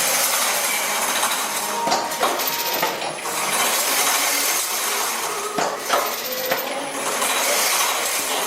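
Automatic chain-link mesh machine running, clattering and knocking as it weaves steel wire, with a working cycle that repeats about every four seconds.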